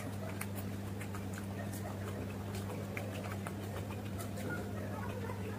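Close-miked chewing: soft, irregular wet mouth clicks of someone eating, over a steady low hum.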